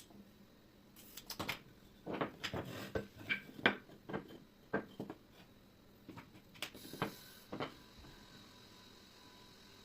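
Irregular light knocks and clicks, about a dozen over six seconds, that stop just before the end, over a faint steady hum.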